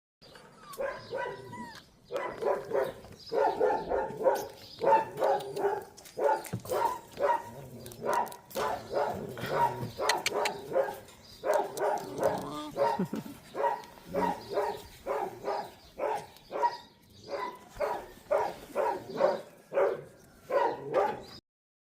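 Puppies barking and yipping over and over, about two or three short barks a second, with an occasional whimper.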